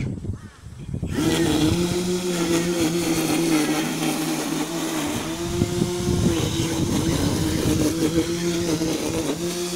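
The motor of a radio-controlled truck rigged as a lawnmower, running at a steady high whine after a brief dip about a second in. Irregular rattling comes in around the middle as it works across the grass.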